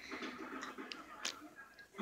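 Faint rustling with a few small clicks as a hand strokes a dog's fur close to the phone's microphone.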